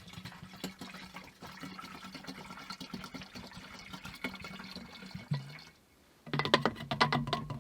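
Lamp oil poured from a small bottle into an oil lantern's fuel reservoir, a steady pour lasting about six seconds. After a brief pause, a run of clinks and knocks near the end.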